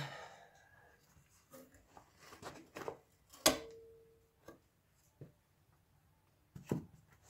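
Scattered knocks and clunks as a hybrid car battery pack's metal housing and a wooden block are shifted and set down. About three and a half seconds in comes one sharp metallic clank that rings briefly.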